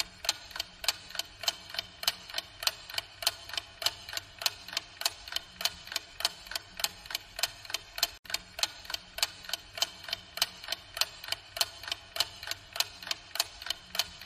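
Clock ticking sound effect for a quiz countdown timer: even, sharp ticks about three times a second.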